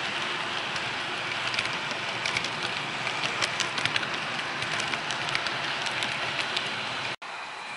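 Model train rolling along the track, heard from a camera riding on it: a steady rattling hiss with irregular sharp clicks from the wheels and rail joints. About seven seconds in the sound cuts out for an instant and a quieter, steadier sound follows.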